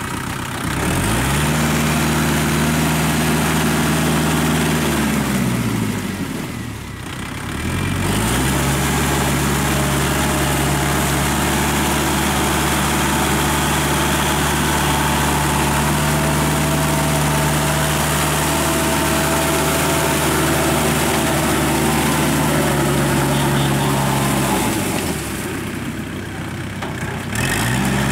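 Kubota L5018 tractor's diesel engine running under load as it drives a Maschio rotary tiller through wet paddy mud. The revs climb in the first second, sag about 6 s in and pick back up by about 8 s, then sag again around 25 s and come back up just before the end.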